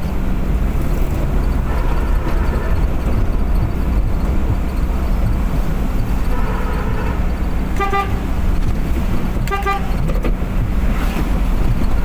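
Steady engine and road drone of a car driving on the highway, with a vehicle horn sounding: a longer honk about six and a half seconds in, then two short toots about a second and a half apart.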